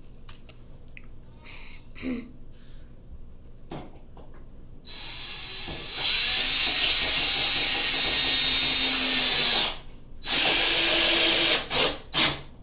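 Cordless drill driving a mounting screw through a wooden wall plate, with light handling clicks first. The motor winds up about five seconds in and runs steadily for nearly four seconds, stops, runs again for about a second, and ends with two short trigger blips as the screw seats.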